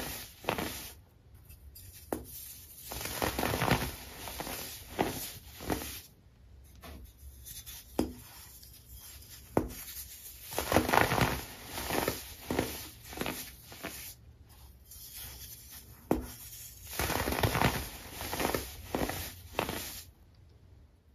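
Hands squeezing and crushing clumps of dried, compressed baking soda, giving irregular crunchy bursts with short pauses between squeezes as the powder crumbles apart.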